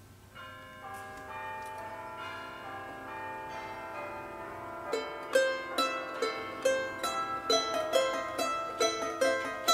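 Instrumental background music on plucked strings. A slow run of ringing notes builds up and holds, then about halfway in a quicker, rhythmic plucked melody comes in.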